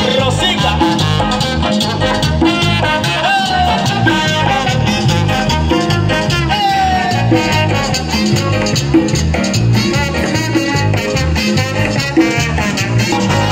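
Live Latin dance band playing an upbeat number, brass over a steady bass and percussion beat.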